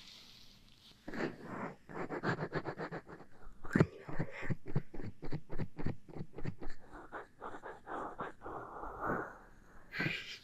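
A faux fox tail brushed and rubbed against the microphone, starting about a second in. It makes a soft, scratchy rustle in quick repeated strokes, several a second.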